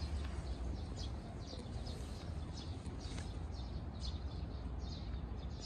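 Small birds chirping again and again, short high notes over a steady low rumble.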